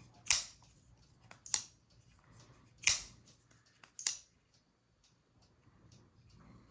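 Spyderco Shaman folding knife being worked open and shut by hand, the blade snapping against its compression lock four times, a little over a second apart, followed by a few faint ticks.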